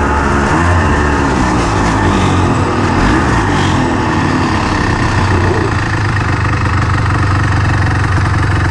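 Honda FL350 Odyssey buggy's single-cylinder engine running, its speed rising and falling a little as the buggy rolls along at low speed. It settles into a steady idle about five seconds in.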